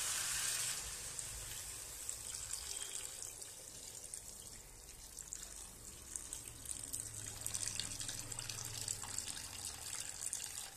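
Water poured from a plastic jug into a hot kadai of fried, spiced potatoes and cauliflower. It sizzles at first, fading about a second in to an uneven trickle and splash as the pan fills for the curry.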